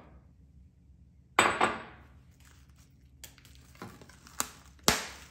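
Cling film crackling as it is handled and pressed over a tray of dough balls: two loud crinkling bursts about a second and a half in, a few light taps, then a sharp knock near the end.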